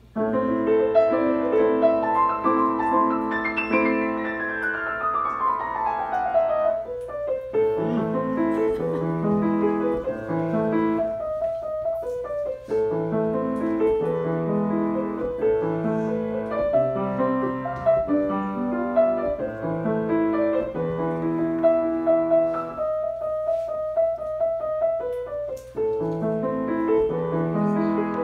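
A grand piano being played. It opens with a long run down the keyboard a few seconds in, then goes on in rhythmic chords over repeated bass notes.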